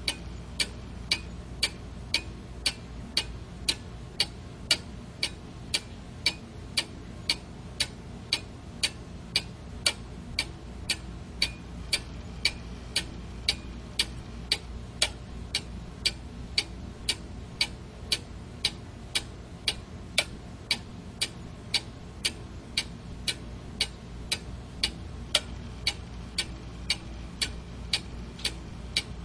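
Quartz alarm clock ticking steadily, an even run of sharp ticks.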